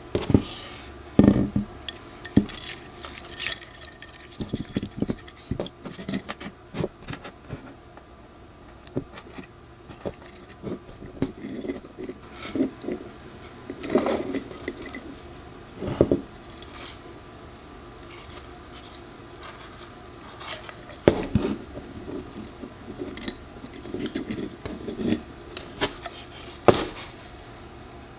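Irregular clicks, taps and short scrapes of small hard parts being handled and fitted together by hand, with a few louder knocks scattered through.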